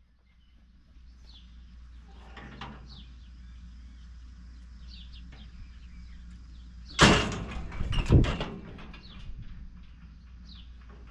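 Steel cattle squeeze chute clanging twice, sharply, about seven and eight seconds in, with a Hereford cow held in its headgate. Faint bird chirps sound between.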